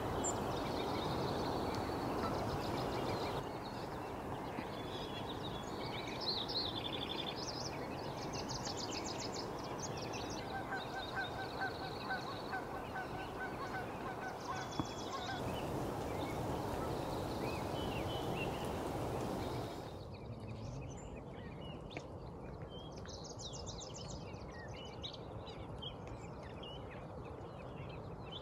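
Geese honking, a short run of evenly spaced calls about halfway through, with smaller birds chirping over a steady outdoor hiss. The background hiss drops quieter about two-thirds of the way in.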